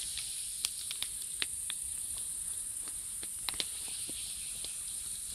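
Night chorus of crickets, a steady high-pitched trill, with a few scattered sharp clicks and crackles over it.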